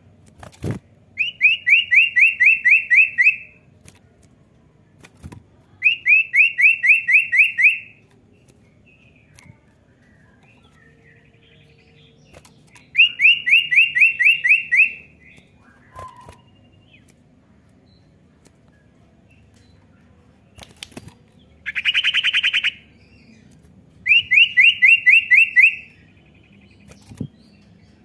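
Common iora (cipoh) singing: five bouts of a fast trill, each a run of about eight quick repeated notes lasting about two seconds, with a denser, harsher phrase about two-thirds of the way through. Sharp clicks come between the phrases.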